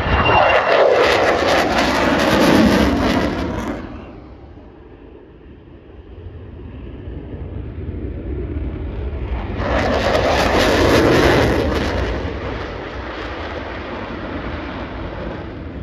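Jet aircraft roaring past low and fast twice. The first pass is loud, its pitch falling as it goes by, and fades after about four seconds. A second roar swells to a peak about ten seconds in and dies away.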